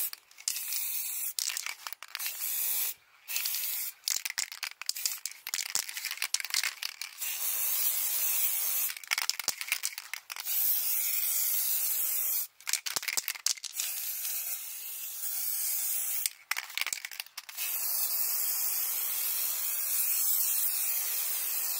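Aerosol spray can of clear coat hissing in repeated bursts, stopping briefly between passes, with one long unbroken pass over the last few seconds.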